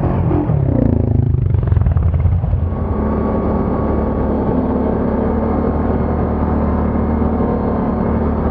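ATV engine running as the quad is ridden along a snowy trail; its pitch drops over the first two seconds, then holds steady.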